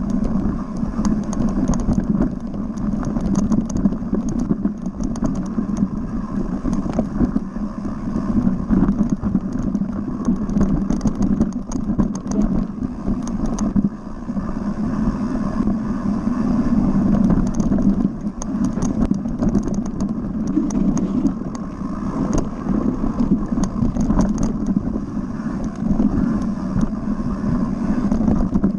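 Mountain bike ridden fast down a dirt forest singletrack: a steady rushing rumble of tyres on the trail, with frequent small clicks and rattles from the bike over the rough ground.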